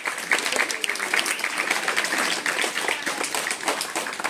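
A small group of people applauding, clapping by hand steadily.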